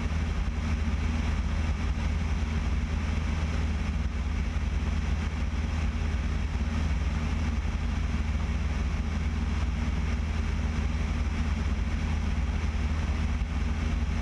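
Piper Cherokee 180's four-cylinder Lycoming engine and propeller droning steadily in cruise flight.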